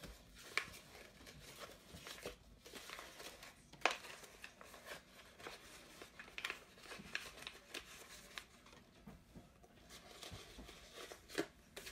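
Construction paper rustling and crinkling as it is folded over the end of a cardboard paper towel tube, with a few light taps.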